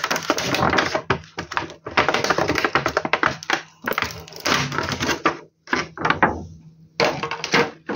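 Rapid clicking and metallic rattling in several bursts with short pauses, as a metal inverter cover and its fixings are worked loose by hand. A faint steady low hum runs underneath.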